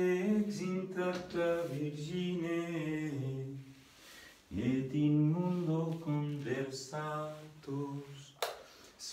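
A solo voice singing a slow devotional song in long, held phrases, with a short break about four seconds in.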